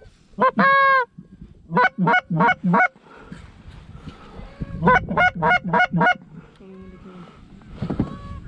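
Canada goose honks, loud and close: one long honk, then a quick run of four short honks, and a couple of seconds later another run of about six.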